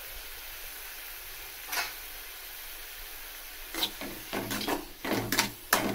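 Cabbage sizzling faintly in hot oil in a metal kadai, a steady hiss. From about four seconds in, a perforated metal spoon scrapes and clatters against the pan, stirring it in a quick run of strokes.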